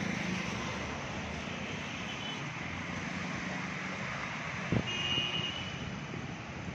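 Steady rush of city road traffic, cars and motorbikes passing. A short knock comes a little before five seconds in, followed by a brief vehicle horn toot.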